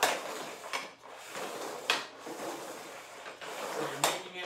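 Hockey stick blade and puck scraping across synthetic ice tiles during toe drags, with three sharp clacks about two seconds apart as the puck is pulled in and pushed back out.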